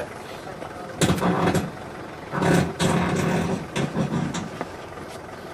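Fibreglass catamaran hull knocking and scraping against its trailer as it is pushed and shifted by hand, with a sharp knock about a second in and rougher scraping shortly after.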